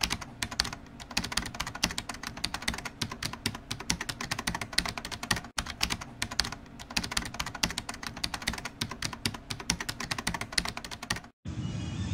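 Rapid, irregular clicking of a computer keyboard being typed on, played as a sound effect; the clicks stop suddenly near the end and give way to a steady low outdoor rumble.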